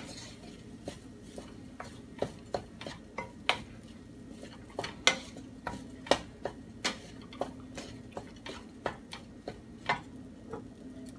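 Wooden spatula stirring and tossing fried rice in a frying pan: irregular clicks and scrapes as it knocks against the pan, about two to three a second, stopping near the end.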